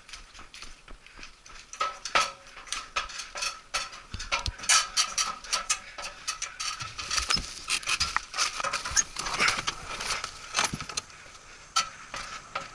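Irregular clinking and clattering of small hard objects being handled, many quick knocks in a row, over a faint steady whine.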